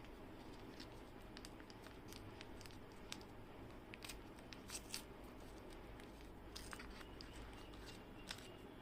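Faint crinkling and clicking of a plastic blind bag being handled and torn open, with a few sharper crackles about four to five seconds in and again near the end.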